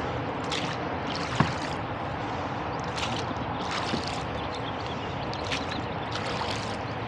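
Wooden oars dipping and pulling through river water as a rowboat is rowed, with a splash and patter of drips about once a second over a steady rushing noise. A single sharp knock about one and a half seconds in.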